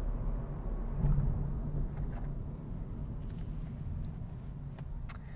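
Car cabin noise while driving: a steady low rumble of engine and road, with a couple of faint clicks near the end.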